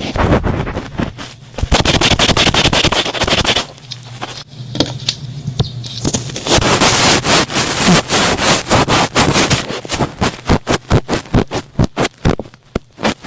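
Thick cotton swab rubbing and scraping right at the microphone in ear-cleaning ASMR, a close, crackly, squishy rubbing. It eases off for a couple of seconds in the middle, then turns into quick separate strokes, about three or four a second, near the end.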